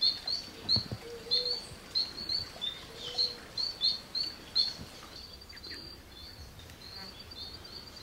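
A bird calling: a series of short, high chirps a few per second, then, about halfway through, a quicker, fainter run of similar notes.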